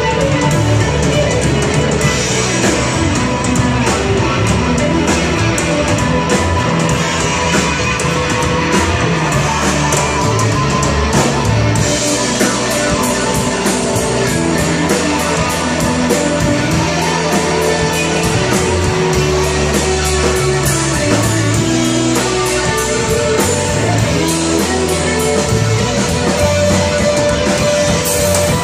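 Live rock band playing loudly: electric guitar over a drum kit, running steadily without a break.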